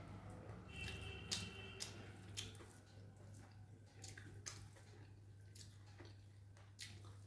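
Quiet eating sounds: soft chewing and mouth noises with scattered light clicks and taps, including a brief ringing clink about a second in, over a low steady hum.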